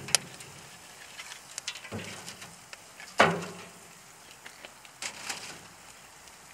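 Split firewood logs knocking and clunking onto the metal fire grate of a Santa Maria grill's firebox as wood is added, with the heaviest clunk about three seconds in. Between the knocks, the wood fire crackles with small pops.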